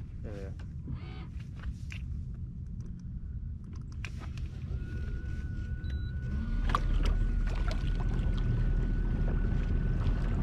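Kayak underway on open water: a steady low rumble with small splashes and knocks. A thin steady whine comes in about five seconds in, and the sound grows louder with an added low hum about a second and a half later.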